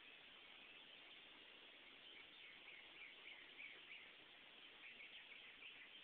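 Faint bird chirps over a steady low hiss, in two short runs of quick notes, one near the middle and one near the end.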